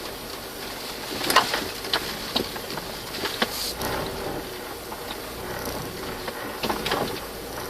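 A vehicle driving over a rough forest track: a steady running noise broken by irregular knocks and rattles, the loudest about a second and a half in.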